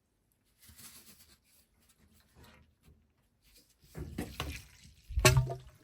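Rubbing and rustling of hands handling the washing machine's drain hose and clamp, with a few knocks near the end; one sharp knock is the loudest.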